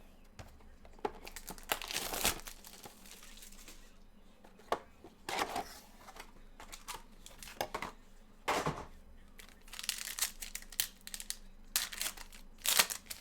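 Trading card pack wrapping being torn open and crinkled by hand, in a series of irregular short rustling bursts.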